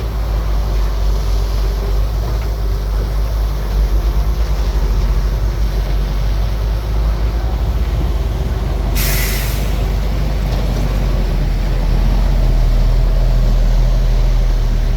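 Bulldozer's diesel engine running with a steady low rumble, louder over the last few seconds. A short, sharp hiss cuts in about nine seconds in.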